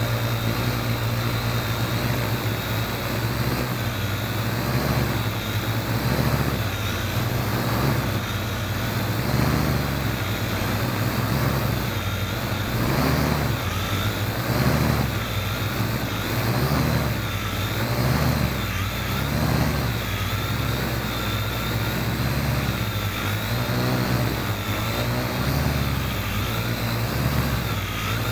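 Parrot AR.Drone quadcopter's four electric motors and propellers whirring in flight, heard up close from a camera mounted on the drone. The low hum swells and eases in a regular beat about once a second, with a wavering whine above it as the motors keep adjusting their speed.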